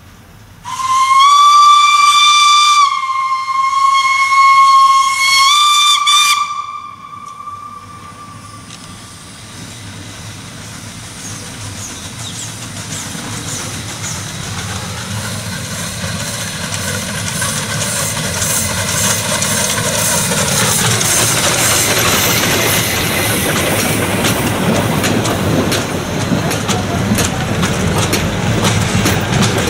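Steam whistle of the metre-gauge 020+020 Mallet 'Blanc-Misseron' tank locomotive no. 101: one long blast of about six seconds that shifts slightly in pitch, then trails away. The train then approaches and rolls past, its wheels and coaches rumbling and clattering more and more loudly.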